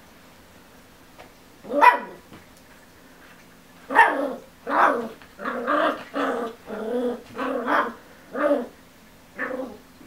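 Miniature schnauzer puppy barking: one bark about two seconds in, then a quick run of about nine more barks from about four seconds in, the yapping of a puppy stuck on the couch and wanting to get down.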